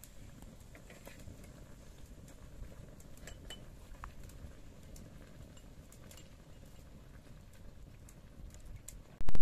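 Small wood fire crackling under a pot, with light clinks and ticks as spices are spooned from a small pot into the pan. Near the end, a sudden loud thump that fades away over about a second.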